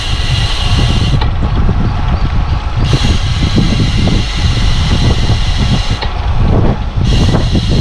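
Wind buffeting the microphone of a camera carried on a moving bicycle, a loud steady rumble, with a higher hiss that cuts in and out three times.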